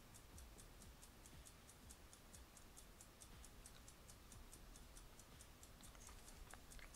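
Near silence: faint, steady high-pitched ticking, roughly four to five ticks a second, over a low room hum.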